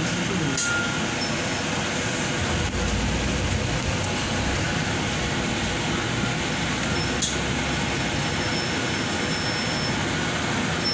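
Interior noise of a moving double-decker bus: steady engine and road noise with a few sharp knocks and rattles. A deeper engine rumble strengthens about three seconds in as the bus pulls through the junction.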